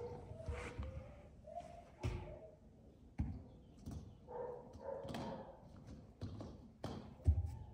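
German shepherd puppy's claws and paws tapping on a concrete floor while it noses at a small rubber ball wedged against a breeze-block wall: a few scattered light taps and knocks, one a little louder near the end.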